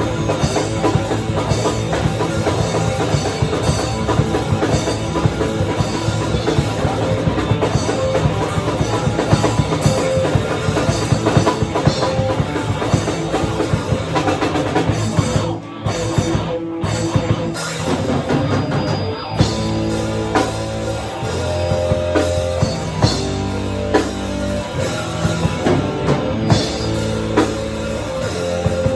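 Live rock band playing loud, with drum kit and guitar: a dense, full-on passage, a brief break about halfway, then a slower part with held bass notes under spaced drum hits.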